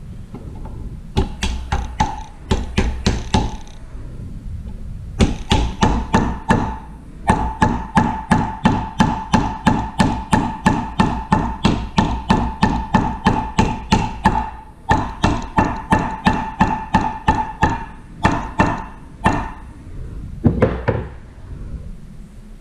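A hammer striking metal in quick runs of blows, about four a second, each blow ringing with a clear metallic note. The runs are broken by short pauses.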